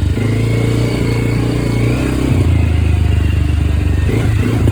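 Can-Am DS 250 ATV's single-cylinder engine running under way on a short test ride. The engine note drops a little past halfway, then picks up again near the end.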